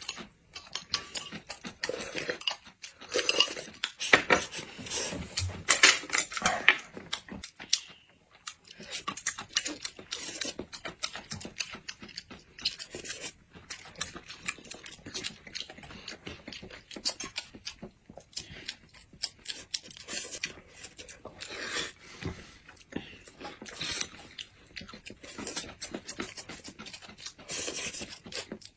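Close-up eating sounds of two people at a meal of noodles: slurping noodles, chewing, and chopsticks clicking against the ceramic dishes, in an irregular run of short clicks and brief slurps.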